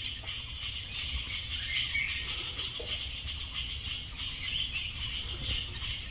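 Forest ambience: a steady chorus of insects with a few short bird chirps over it.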